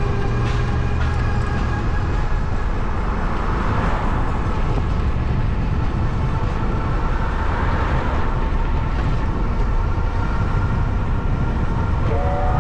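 Steady rush of street traffic and wind noise heard from a moving bicycle, with no clear single event.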